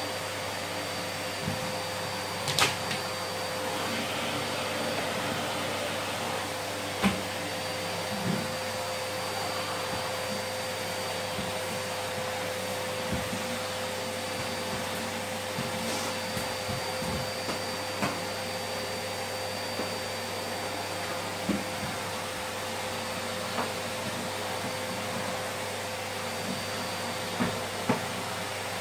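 Canister vacuum cleaner running steadily, a constant hiss with a steady whine in it, as it is pushed across the floor, with a few short knocks scattered through.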